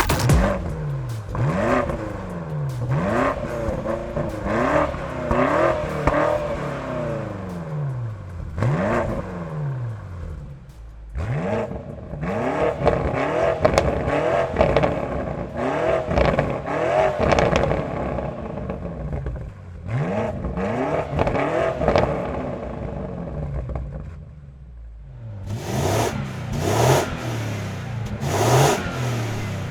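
BMW G90 M5's twin-turbo V8 revved repeatedly in short blips, each rising and falling in pitch, through a Scorpion exhaust centre section with the standard back box, first with the exhaust valves closed, then open. Near the end the sound changes to a sharper, crackly exhaust note as the Scorpion back box goes on with the valves closed.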